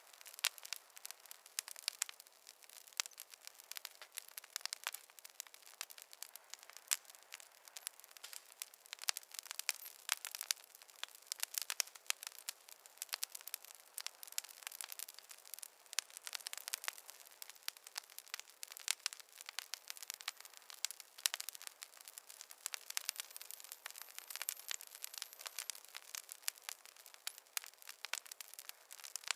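Fireplace fire crackling: a dense, irregular stream of small pops and snaps, without any low rumble.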